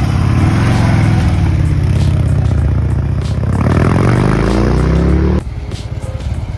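Harley-Davidson Dyna Low Rider's V-twin engine running as the bike pulls away down the street, the revs climbing in pitch about three and a half seconds in. Just after five seconds it cuts suddenly to a quieter, lower engine sound.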